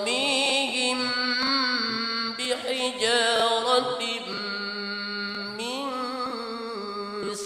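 Melodic Quran recitation: a single voice drawing out long, ornamented notes that glide up and down in pitch.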